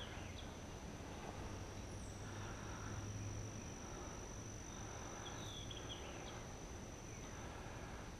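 Steady high-pitched insect drone over faint outdoor ambience, with a couple of short falling bird chirps, one at the start and one about five seconds in.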